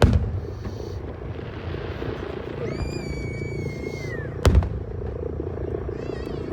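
Fireworks bursting: a sharp boom at the start and another about four and a half seconds in. Between them a high whistling tone holds steady for about a second and a half, then falls away.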